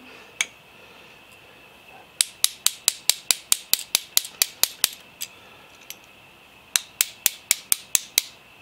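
A small hammer tapping out the steel pivot pins of a Hardinge collet closer's locking dogs: quick light metal-on-metal blows, about five a second, in two runs of roughly fourteen and seven strikes with a pause between them. The pins are worn and are being knocked out for replacement.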